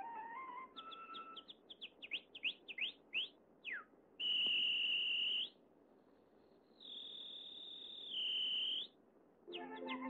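Cartoon canary's whistled song: a quick run of sliding chirps, then two long, high, steady whistled notes with short pauses between. A flute's rising note sounds at the very start, and band music comes in just before the end.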